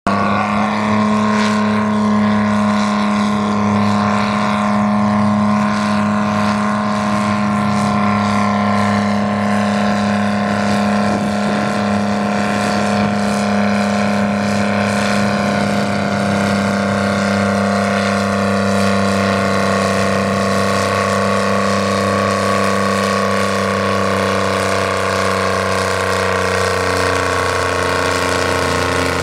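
Chamberlain Super 70 tractor's GM 3-71 two-stroke diesel running hard at high revs while dragging a weighted pulling sled, a loud, steady engine note that dips slightly in pitch near the end as the load builds.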